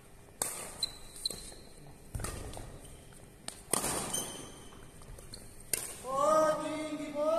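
Badminton rackets striking a shuttlecock back and forth in a rally, several sharp hits echoing in a large sports hall, with a few brief shoe squeaks on the court floor. A player gives a loud drawn-out shout from about six seconds in.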